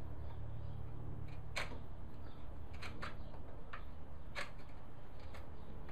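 A few light, separate clicks and taps of a workpiece and hand tools being handled while a cut line is marked. A steady low hum runs underneath.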